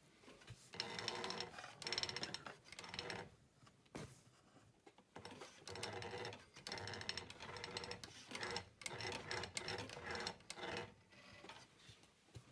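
Industrial sewing machine running in several short bursts of about a second each, with pauses between.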